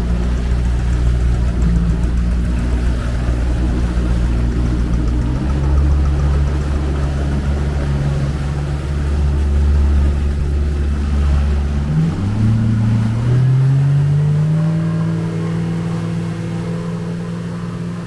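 Small speedboat's engine running at speed, with a steady note. About a third of the way in the pitch steps to a new level, around two-thirds through it rises, and then it holds higher as the sound slowly fades a little.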